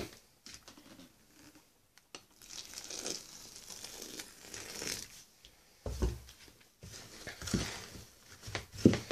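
A plastic scoop stirring and scraping a wet mix of coconut coir and sawdust in a plastic bucket. A stream of water pours into the bucket for about three seconds in the middle. Several dull knocks come near the end.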